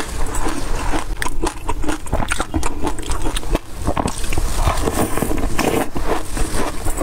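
Close-miked eating of black sesame seed and passion fruit yogurt: a plastic spoon scrapes through the seed-covered yogurt, and chewing with many small, quick crunches and wet mouth sounds.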